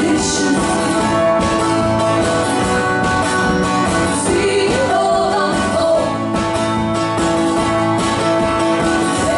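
Live performance of a song: strummed guitar with singing.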